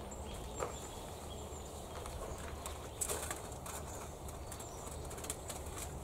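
A few light clicks and rustles from a small metal camping stove and a packet being handled, over steady low background noise, with faint high bird chirps.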